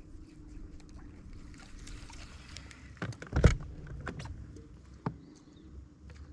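Open-boat ambience: a faint steady low hum, broken by a few sudden sharp noises, with the loudest cluster about three and a half seconds in.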